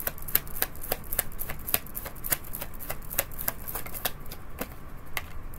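A deck of tarot cards being shuffled by hand: a quick, uneven run of light card clicks and flicks.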